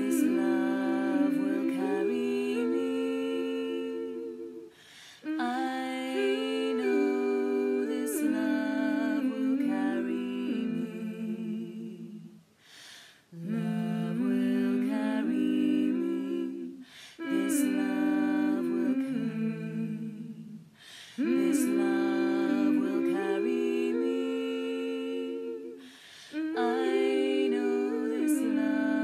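One woman's voice multitracked into three-part a cappella harmony, humming wordlessly in long sustained phrases that step between chords, with short breaks for breath between phrases.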